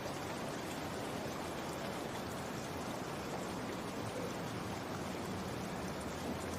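Steady rainfall, an even hiss of rain that holds at one level throughout.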